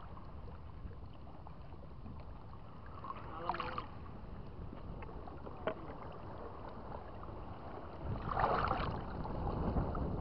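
Sea water sloshing and lapping as a person wades through it, with a louder splash about eight seconds in.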